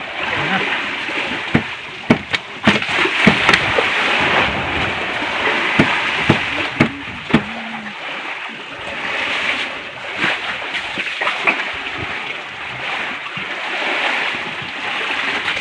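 Water washing and splashing around a fishing boat, swelling and easing, with irregular clicks and scrapes of a knife working a large fish on the wet deck.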